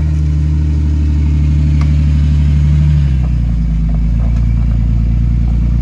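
1990 Jeep Cherokee XJ's 4.0 straight-six with a Flowmaster 40 Series exhaust, running at low revs as the Jeep crawls up a steep dirt slope. Its note changes about three seconds in.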